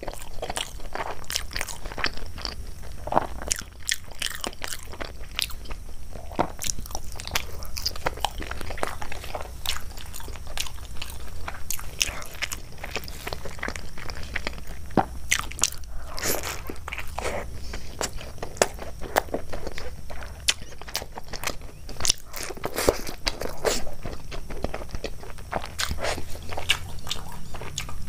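A person chewing and biting food close to the microphone, with many sharp, irregular crunches, over a low steady hum.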